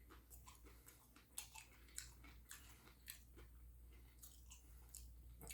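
Faint close-up mouth sounds of a person chewing food, with soft wet clicks and smacks coming irregularly about twice a second.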